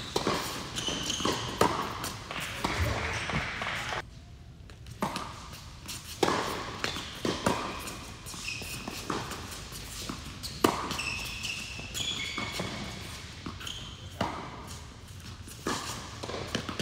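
A tennis rally: the ball is struck by rackets and bounces on a hard indoor court, giving sharp hits every second or so, with short high squeaks between them. The hits echo in a large hall.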